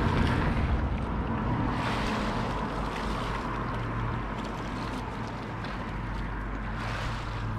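Steady wind on the microphone over small waves washing against a sea wall.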